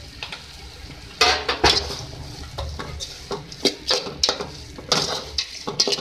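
Spoons stirring and scraping soft cooked chana dal in a metal pot, with irregular clinks and knocks against the pot's side that start about a second in.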